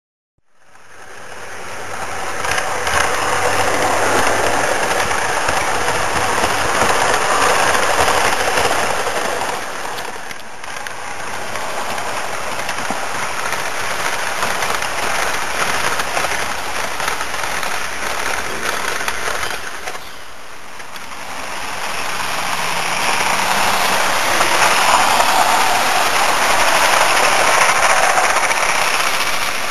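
Model train running on garden railway track: a steady rattling rumble of wheels and motor, getting louder as the train comes close in the second half.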